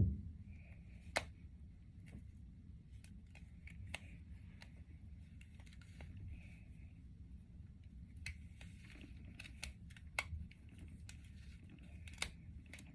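Hands working a braid of synthetic wig hair, with soft rustling and scattered sharp little clicks and snaps at irregular intervals, the loudest right at the start and about a second in.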